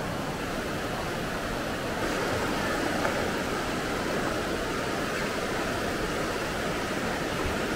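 Whitewater river rapids rushing, a steady, even noise with no breaks.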